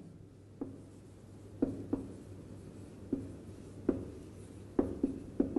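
Whiteboard marker writing on a whiteboard: faint rubbing strokes broken by about eight light, irregularly spaced taps as the tip touches the board.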